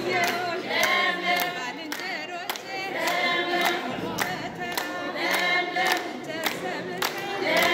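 A group of women singing together, with rhythmic hand-clapping at about two claps a second.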